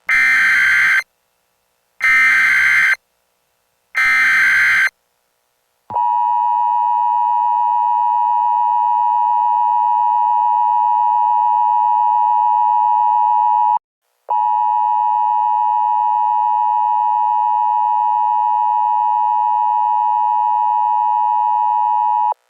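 Simulated Emergency Alert System broadcast opening: three loud screeching data bursts of the SAME digital header, each about a second long and two seconds apart, followed by the long steady EAS attention tone, broken once by a short gap about halfway through.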